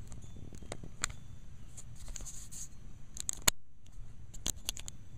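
Handling noise from a handheld camera being moved around: a low rumble with scattered sharp clicks, the loudest about three and a half seconds in and a quick cluster of clicks near the end.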